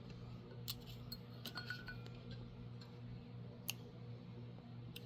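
Faint steady low hum with a few scattered light clicks and taps, about five in all, one a little louder just before the middle.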